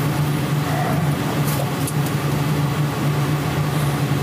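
Steady low hum with a faint hiss, unchanging throughout; no speech.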